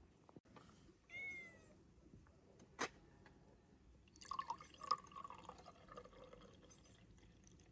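Faint animal sounds: a single short call about a second in, bending slightly down in pitch. It is followed by a sharp click and then a stretch of small knocks and chirps.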